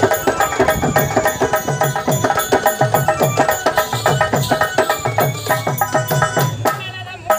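Live dance music for a Tamil village stage drama: fast, driving drum beats under a keyboard melody. The music breaks off briefly near the end, then starts again.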